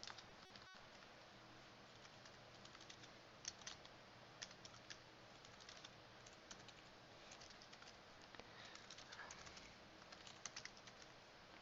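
Faint, irregular clicking of computer keyboard keys as terminal commands are typed, in small scattered bursts.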